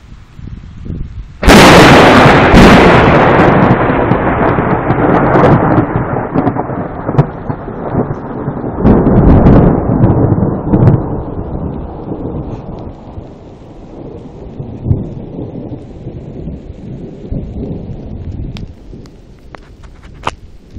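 Close thunderclap: a sudden sharp crack about a second and a half in, then a long rolling rumble that swells again around nine seconds in and slowly dies away.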